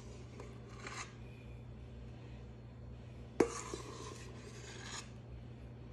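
Quiet scraping and rubbing of a utensil through thick cake batter against a metal mixing bowl as the batter is scraped out, with one sharp tap about three and a half seconds in. A steady low hum runs underneath.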